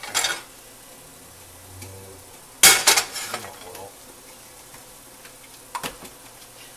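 Faint frying in a pan, with three short, sharp bursts of noise from handling the Cheez-It-crusted pork chop; the loudest comes a little before halfway and fades over about a second.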